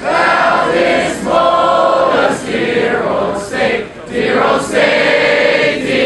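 A crowd of students singing together, in long held notes in phrases about a second long with short breaks between them.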